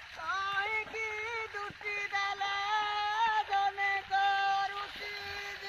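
A high voice singing a melody of held, steady notes with short slides between them and brief breaks between phrases.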